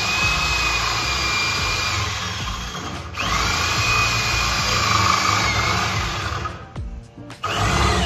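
Corded electric drill with a spade bit boring into the edge of a wooden door, its motor whining steadily under load. It stops briefly about three seconds in and spins back up, then stops again for about half a second near the end before restarting.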